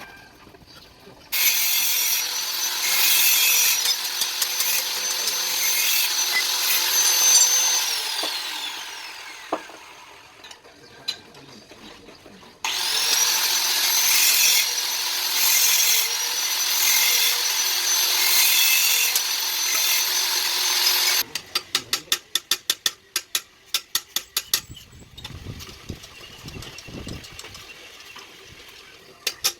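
Electric power tool running against an iron plate in two runs, with a steady high whine over a grinding noise. The first run winds down with a falling whine. The second starts with a rising whine and cuts off abruptly, followed by a quick series of light sharp taps.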